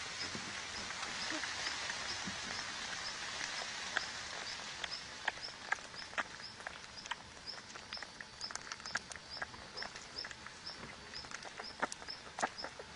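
Outdoor ambience with a high, short chirp repeating about three times a second. From about four seconds in there are scattered light ticks and rustles, fitting the rabbit and her nursing kits shifting on dry soil and leaves.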